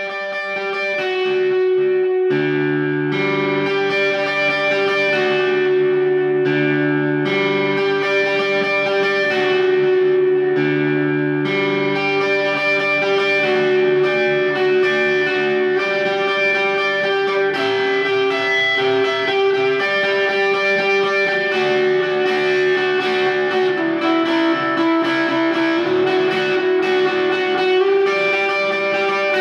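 Electric guitar, an Epiphone Les Paul Gothic Studio, played through a Vox AC30C2 valve amp with Celestion Greenback speakers and an effects unit. A continuous line of sustained, overlapping notes rings over a held droning note.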